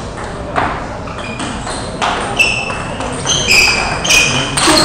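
Table tennis play in a sports hall: the celluloid ball clicking sharply off tables and bats, with a run of short, high-pitched squeaks from about halfway on.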